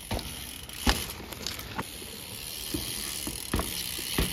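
Mountain bike rolling over a dirt trail and a small wooden drop platform: a steady rush of tyre noise with several sharp knocks as the wheels go onto and drop off the boards.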